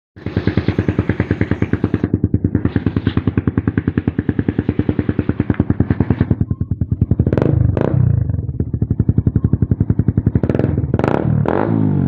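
Suzuki Raider 150 Fi's single-cylinder four-stroke engine running through an aftermarket Apido 'chicken pipe' exhaust. It idles with a fast, even pulsing for the first half, then is blipped several times, the pitch jumping up and dropping back each time.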